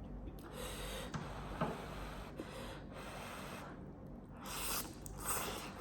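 Close-up eating sounds of Buldak spicy noodles with cheese: noodles being slurped and chewed, in several short hissy rushes, the loudest near the end.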